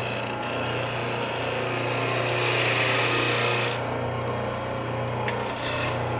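Wood lathe running with a steady motor hum while a hand-held tool rubs against the spinning wooden cylinder. The rasping grows louder about two and a half seconds in and stops near four seconds, leaving the lathe humming.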